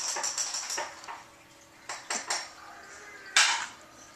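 Small metal tags on a dog's collar jingling in a quick even rhythm, about five clinks a second, which stops after about a second; a few separate clinks follow, then a brief louder jangle and rustle about three and a half seconds in as the dog turns its head.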